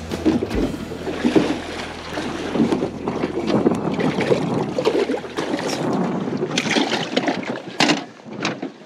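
Wind buffeting the microphone and choppy water slapping a small jon boat's hull, giving an irregular rumbling wash. A few sharp knocks come near the end.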